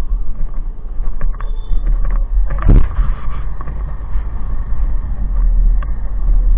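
Motorcycle on the move: a steady low rumble of wind buffeting the microphone over the engine and road noise, with a brief louder sound a little under three seconds in.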